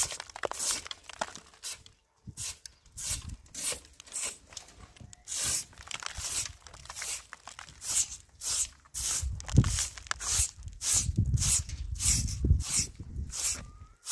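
Short straw hand broom swishing and scraping in repeated strokes across a rough cement roof surface, about two strokes a second, with a low rumble in the second half.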